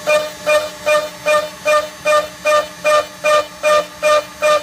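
ShopBot CNC router's spindle at 18,000 RPM driving a 4 mm two-flute end mill dry through low carbon steel on a trochoidal toolpath: a steady pitched cutting whine that swells and drops about two and a half times a second as the bit loops into the cut.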